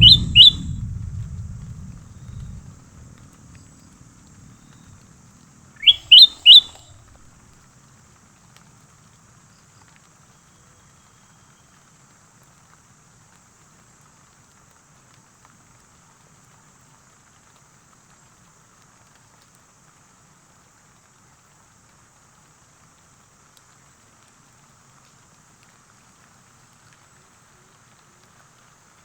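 A bird gives short, sharp upward-sweeping calls: a couple at the very start, then three in quick succession about six seconds in. A low rumble at the start fades away over the first two seconds.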